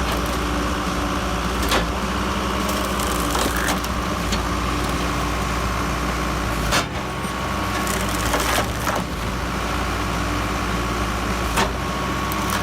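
Wood-splitting machine running steadily, with several sharp cracks as logs split apart.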